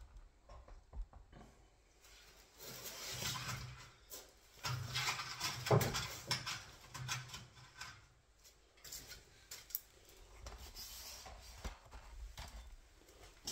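Faint handling noises: rubbing and shuffling with scattered light knocks and clicks, as of hands and a camera moving among the cabinet parts.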